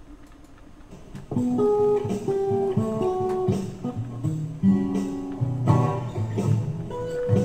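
Guitar music begins about a second and a half in. It is an instrumental intro of separate plucked notes over bass notes, with no singing yet.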